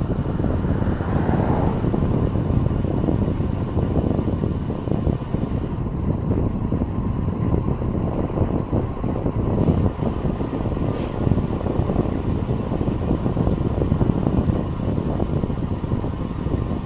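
Wind buffeting the microphone of a camera on a moving bicycle: a steady, loud, rough rumble.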